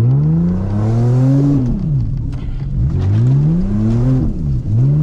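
1999 Toyota Camry's engine heard from inside the cabin while driving, revving up and dropping back twice, with a third climb starting near the end.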